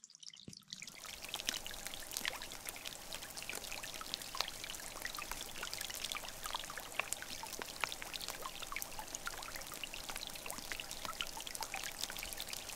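Wet snow and meltwater drops pattering steadily: a dense hiss full of small sharp ticks, starting suddenly about half a second in.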